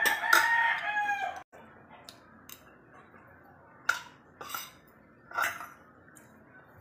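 A rooster crows once for about a second and a half and is cut off abruptly. A few seconds later a spoon and fork clink against the bowls three times.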